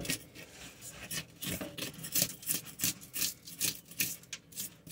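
Scales being scraped off a striped bass: repeated short rasping scrapes, two or three a second.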